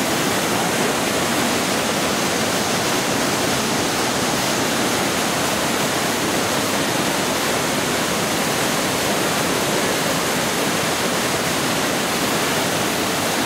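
Iguazu Falls, a wide curtain of waterfalls plunging into a gorge, rushing loudly and steadily.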